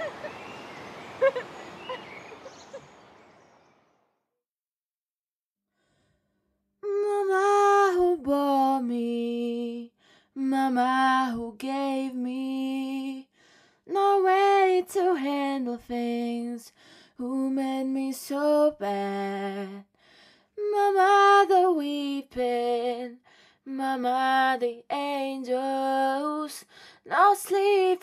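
A woman singing alone, unaccompanied, in short melodic phrases with brief pauses between them, starting about seven seconds in after a few seconds of silence. Before that, a faint hiss with a few clicks fades out.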